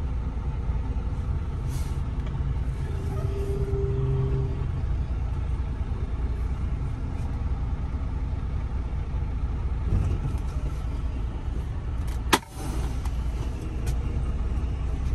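Semi truck's diesel engine running with a steady low rumble inside the cab as the truck rolls slowly through a yard. A single sharp knock stands out about twelve seconds in.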